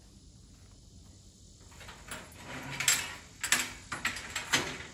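Steel mesh ramp gate of a utility trailer being lifted upright, rattling and clanking on its hinges in several sharp clatters starting about two seconds in.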